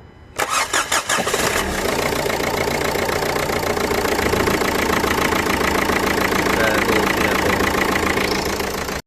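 Renault car engine cranking for about a second in quick pulses, then catching and idling steadily.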